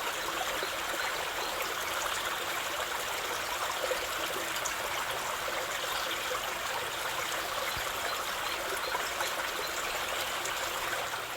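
Waterfall: water falling and running in a steady, even rush.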